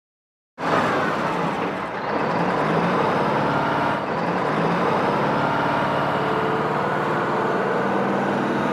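Road traffic with vehicle engines running steadily, a bus among them, cutting in abruptly about half a second in.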